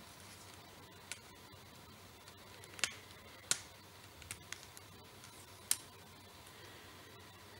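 Scattered light clicks and taps from fingers handling a Panasonic electric shaver, pressing and touching its plastic body and power button, about seven in all over faint background hiss; the shaver's motor is not running.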